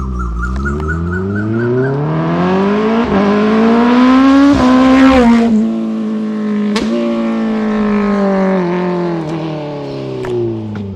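Kawasaki ZX-10R inline-four with an SC Project CR-T short-can exhaust accelerating hard, the engine note rising for about four and a half seconds and peaking as it passes, then falling away in pitch as it rides off. It sounds loud and brutal.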